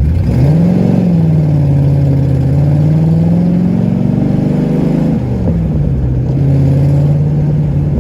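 Cobra roadster's engine heard through its side exhaust pipes under acceleration. The revs jump up, drop at a gear change, then climb slowly through the gear. They fall at another shift about five seconds in, then hold steady while cruising.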